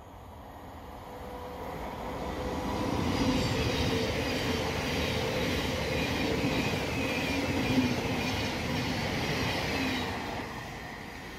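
Thameslink Class 700 electric multiple unit running along the platform: a steady electric hum over wheel-on-rail noise. It builds over the first few seconds, stays loud with one sharp knock a little before eight seconds, and eases off about ten seconds in.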